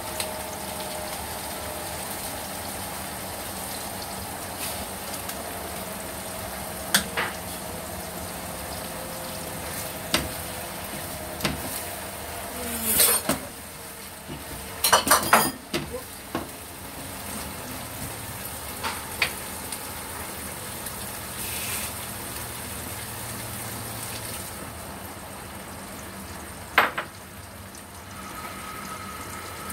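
Eggplant and minced pork sizzling in a nonstick frying pan, with a spatula stirring and knocking against the pan now and then, a cluster of knocks about halfway through.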